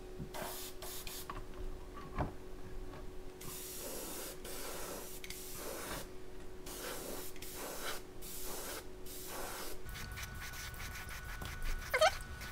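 Iwata HP-C airbrush spraying paint in a run of short, irregular bursts of hiss, some brief and some a second or two long. A steady hum runs underneath and changes pitch about ten seconds in.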